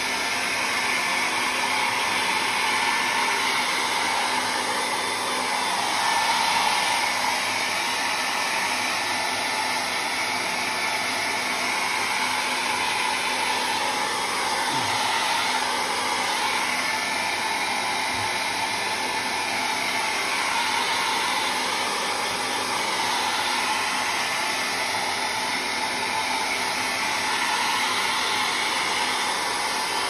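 Hand-held hair dryer blowing steadily over a sheet of paper. Its sound swells slightly now and then as it is moved across the sheet.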